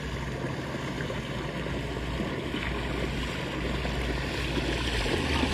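Outboard engine of an approaching bass boat, a low steady drone growing louder as the boat closes in head-on.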